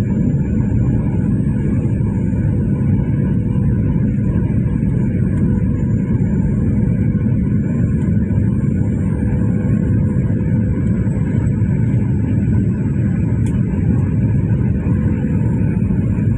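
Steady cabin noise of a Boeing 737-800 heard from a window seat beside the engine: the CFM56 turbofan's rumble and the rush of airflow, with a faint steady hum running through it.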